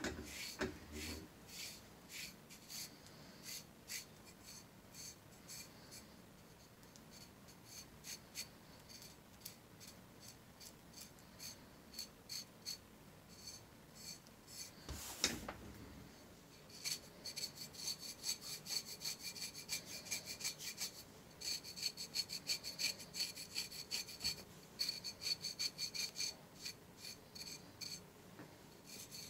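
A handheld file rasping over dry, flaking psoriasis scales on the skin of the leg, stroke after stroke. The strokes are spaced out at first, then come as a fast run of short scrapes in the second half.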